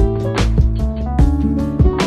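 Instrumental background music with drum hits and melodic notes.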